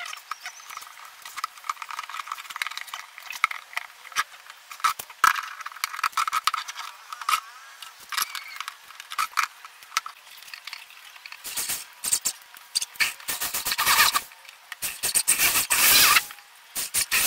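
Clinking and scraping of aluminium case hardware (edging, corner balls, brackets) being handled and fitted onto a plywood mixer case, then, in the last few seconds, an electric drill boring holes into the case in short bursts to take blind rivets.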